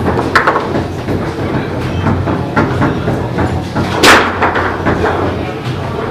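Foosball play: a steady clatter of metal rods rattling in their bearings and plastic figures tapping the ball and the table, with one loud sharp knock about four seconds in.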